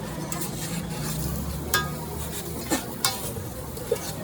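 Egg patties frying on a hot griddle, with a metal spatula scraping and clinking against it a few times.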